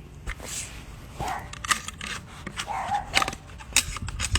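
Sharp metallic clicks and clacks of AR-15 rifle parts being handled and pulled apart during a field strip, as the buffer spring and tube come out and the upper and lower receivers are separated. The loudest knocks come about three and nearly four seconds in.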